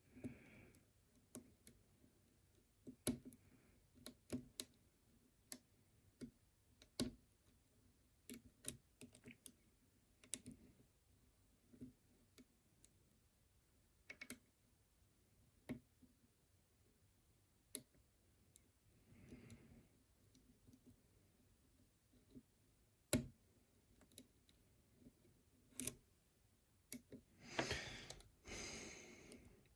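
Faint, irregular clicks of a lock pick and tension wrench working the pins of a pin-tumbler challenge lock. A short burst of rustling handling noise comes near the end.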